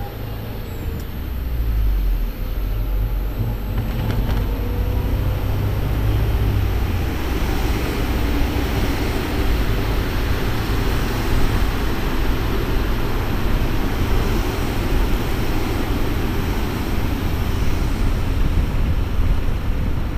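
Suzuki Cappuccino's 657cc turbocharged three-cylinder engine pulling the car up to speed with the roof off, its note rising over the first few seconds. Wind and tyre noise then build up and fill in as the speed climbs.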